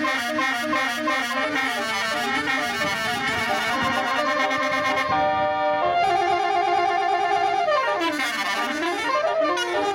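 Telolet bus horn playing a tune: a run of quick stepping notes, then longer held notes about five seconds in, and a slide down and back up in pitch near the end.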